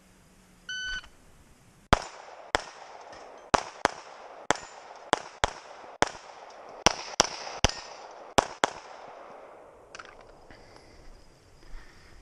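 A short electronic beep, then a fast string of about a dozen handgun shots fired over roughly seven seconds, irregularly spaced, some in quick pairs.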